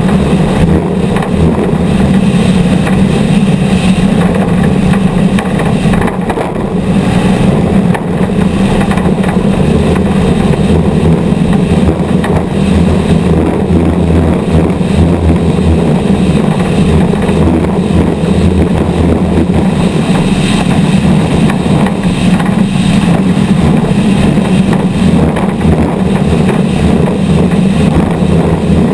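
Off-road race vehicle's engine running loud and steady at racing speed, heard onboard, with a brief dip in level about six seconds in.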